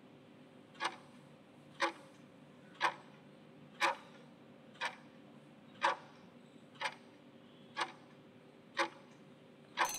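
Clock-tick sound effect of a quiz countdown timer, ticking once a second for ten ticks.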